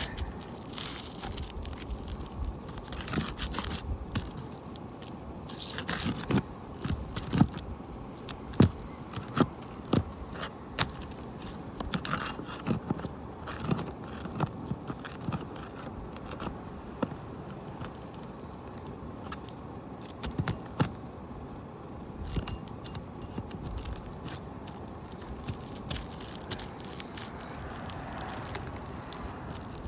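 Scraping and irregular sharp metal knocks of a hand tool working under asphalt shingles to pry out roofing nails, busiest in the first half.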